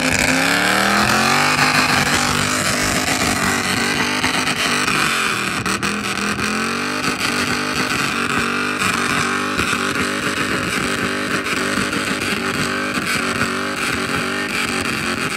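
A Ford modular V8 (4.6 or 5.4) revving. The revs drop steeply in the first two seconds, climb again about five seconds in, and then hold steady at a raised pitch.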